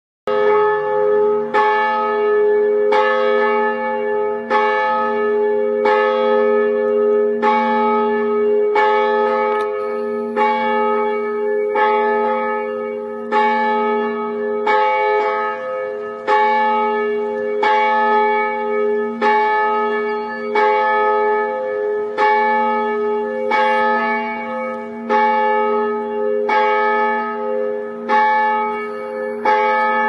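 Church bell ringing in steady, evenly spaced strokes about every second and a half. Each stroke rings on into the next.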